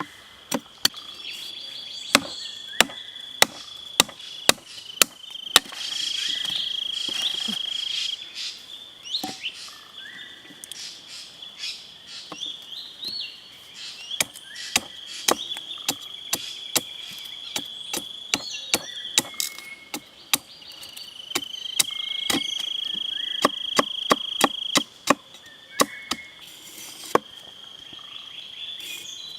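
Sharp chopping strikes, a blade cutting wood, coming irregularly about once a second. Under them a steady high insect drone runs throughout and swells louder twice.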